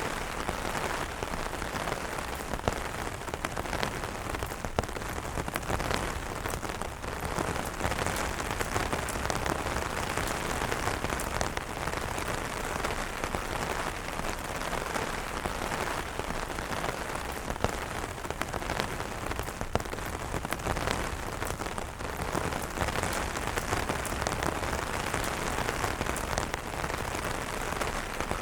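Steady rain falling on an umbrella, a constant hiss with many separate drops ticking sharply on it.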